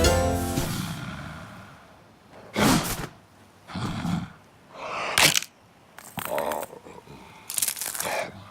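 A cartoon character's wordless voice: a series of short gasps and grunts with pauses between them, as a music sting fades out at the start.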